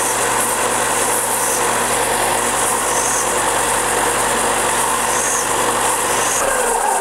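Benchtop belt sander running steadily while a wooden lure blank is sanded on its belt. Near the end it is switched off and winds down, its pitch falling.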